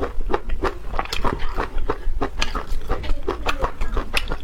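Close-miked chewing of chicken elbows: wet smacking mouth sounds and crunching, a quick irregular run of clicks several times a second.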